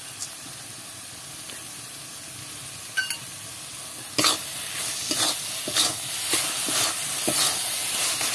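Spatula stirring and scraping a grated-carrot mixture in a metal karai, with a faint steady sizzle underneath. There is a single metal clink about three seconds in, then scraping strokes start about a second later, roughly two a second.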